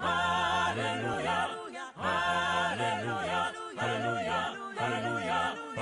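Background music sung a cappella: several voices singing a wordless tune over a low, rhythmic sung bass line.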